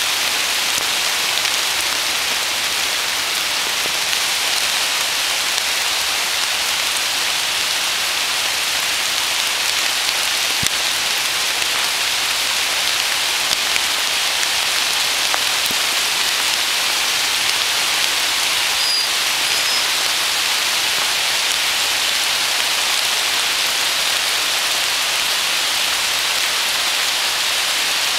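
Steady rain falling on woodland leaves and undergrowth, an even hiss that does not let up.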